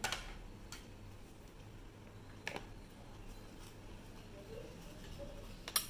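A few light taps of a plastic spoon against a ceramic bowl while a powder mix is stirred, over a faint low room hum.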